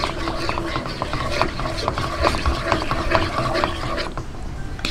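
Wooden spatula stirring saba banana strips through thick brown-sugar syrup in a non-stick wok: a quick, irregular run of small scrapes and clicks against the pan.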